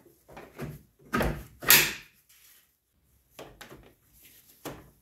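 A radiator assembly and hose being handled and fitted into a car's engine bay: a series of short knocks, clunks and scrapes of plastic and metal parts, the loudest about two seconds in and a sharp knock near the end.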